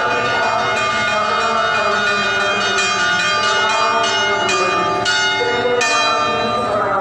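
Church bells ringing in a rapid peal, strike after strike overlapping with their long ringing tones.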